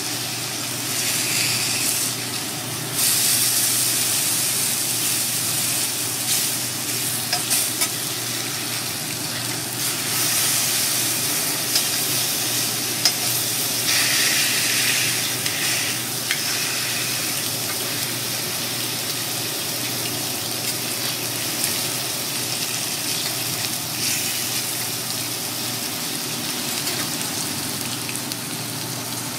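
Kurobuta pork steak pieces sizzling on a hot teppanyaki griddle, a steady hiss that swells louder at times. A few sharp clicks and scrapes come from the metal spatula and fork working the meat, over a steady low hum.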